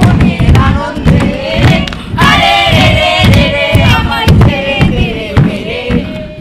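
A group of young voices singing a lively song together over a steady beat of low thumps about twice a second. The song stops just before the end.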